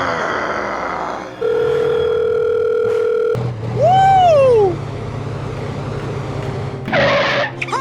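Edited-in sound effects: a steady electronic beep lasting about two seconds, then a whistle-like tone that slides up and falls away, and a short hiss near the end, over a low steady hum.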